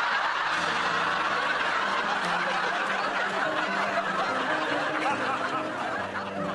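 Studio audience laughing loudly and steadily, many voices together, with no break.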